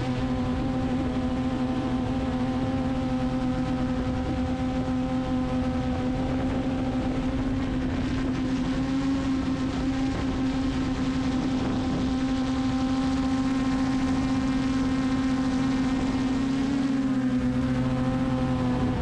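Steady buzz of a small multirotor drone's motors and propellers in flight. It holds one pitch throughout, with a slight change about 17 seconds in.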